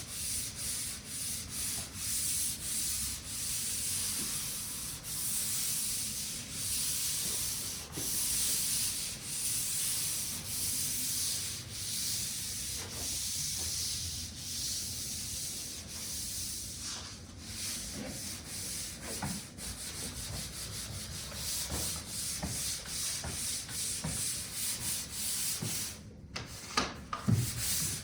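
Sandpaper rubbing over a drywall joint-compound finish in repeated back-and-forth strokes, a scratchy hiss that swells and fades about once a second and quickens later on. This is the light sanding of a level five skim-coated wall.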